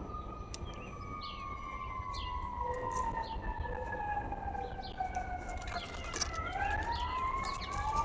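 A siren wailing, its pitch falling slowly for about six seconds and then rising again. Short bird chirps sound over it.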